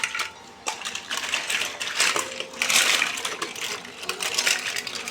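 Plastic toy animals clattering and knocking together as hands rummage through a pile of them: a dense run of small clicks and knocks, busiest in the middle.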